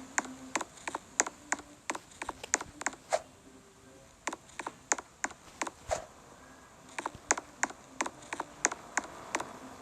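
Sharp, irregular clicks and taps, a few a second with a couple of short pauses, from hand tools working on an air conditioner as it is taken down.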